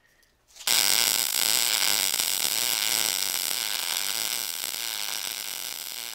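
Short-circuit MIG welding arc running steadily, starting under a second in. It is feeding 0.030 in wire under 75/25 gas at 19 volts, with the wire feed speed turned down to 200 inches a minute.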